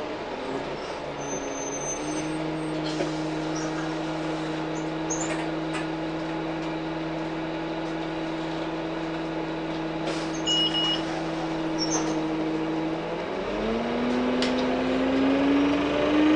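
Onboard sound of a 2003 Orion VII CNG transit bus's Cummins C Gas Plus six-cylinder engine and ZF automatic driveline. It gives a steady drone for about eleven seconds, then rises in pitch about three seconds from the end as the bus accelerates. A few short, high beeps sound early and again around the middle.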